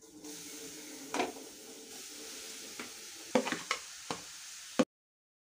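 Grated carrot sizzling as it hits hot ghee in a steel kadai, with a perforated steel skimmer scraping and clinking against the pan several times as it is stirred in. The sound cuts off suddenly near the end.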